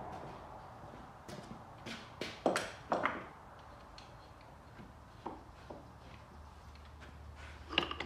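Scattered metallic clinks and knocks of hand tools and parts being handled on a car's front suspension and wheel-arch metal, with a few louder knocks about two and a half and three seconds in and again near the end.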